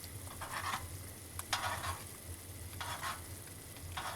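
Pasta being stirred in a pot of boiling water with a spoon: four short swishing scrapes, about one a second, to free pasta that has started sticking to the bottom.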